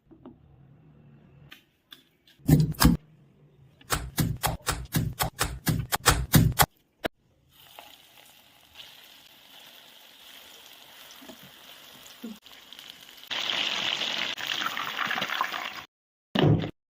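Cooking sounds: a sharp knock, then a fast run of knocks for a couple of seconds. Then a steady hiss of chicken pieces frying in hot oil, which grows louder for the last few seconds. One short knock comes near the end.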